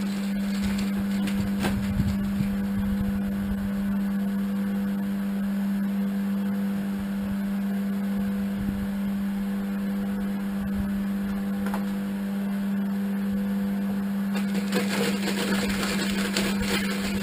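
An electric motor running steadily with a constant hum, with a few faint clicks over it.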